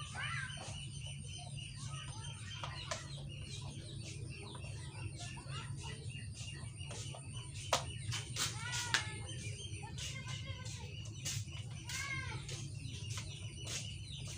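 Chickens clucking, with a steady low hum underneath. A few sharp clicks and knocks come from hands working the plastic filter drum and its pipe fittings, the sharpest about eight and nine seconds in.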